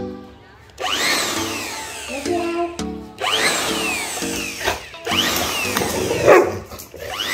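Handheld electric air blower switched on in short blasts, about four times. Each blast is a whine that jumps up as the motor spins up, then slides down in pitch as it winds down after the trigger is let go.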